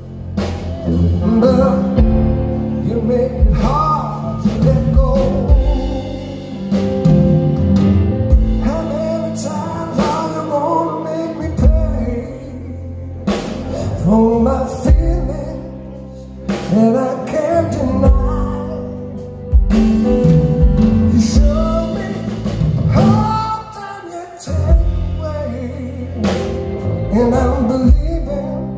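Live ballad: a man singing while playing chords on a Korg stage keyboard, picked up loud through a venue PA.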